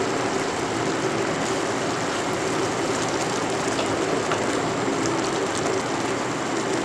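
Mango chutney (chopped raw mango in sugar syrup) bubbling steadily at a boil in a steel pot, stirred with a silicone spatula in the second half.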